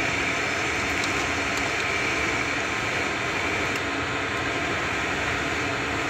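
Steady, even background noise with a few faint ticks.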